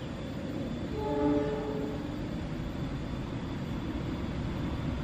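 Diesel train's horn sounding once, about a second in, for roughly a second, over a steady low rumble.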